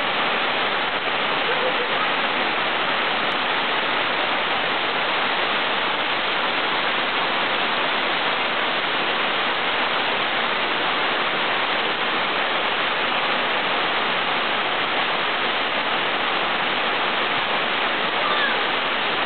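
Water rushing steadily down the Hareshaw Linn waterfall and over the rocks of the burn below it: a constant, even roar.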